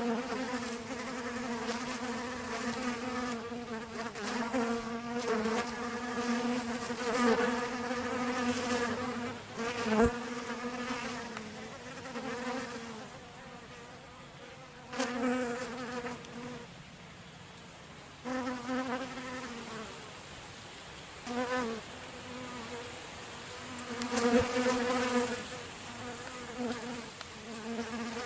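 Bees buzzing in flight close by, a steady pitched hum that swells and fades as they fly near and away. There are quieter gaps in the middle stretch and a short click about ten seconds in.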